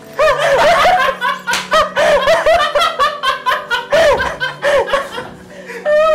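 People laughing hard in quick, repeated bursts of loud laughter that run on with hardly a break.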